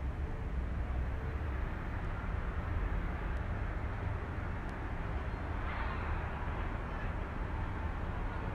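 Road traffic below the balcony: a steady low rumble, with one vehicle passing about six seconds in.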